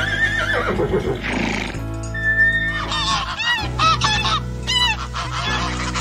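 A horse whinnies, a wavering call that falls in pitch, and then a flock of white domestic geese honks over and over, about two honks a second, from about halfway in. Background music plays throughout.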